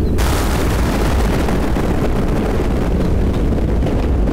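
A thunderclap cracks in just after the start and fades away over two to three seconds, over the steady low rumble of a thunderstorm.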